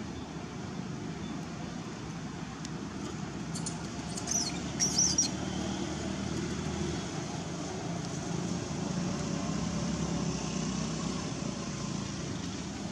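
A baby macaque gives a few short, high-pitched, wavering squeals about four to five seconds in, over a steady low background rumble like distant traffic.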